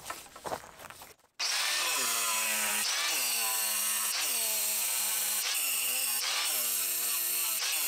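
Angle grinder cutting grooves into the back of a granite slab, starting abruptly about a second and a half in after a few faint knocks. Its whine sags in pitch and recovers again and again as the disc bites into the stone.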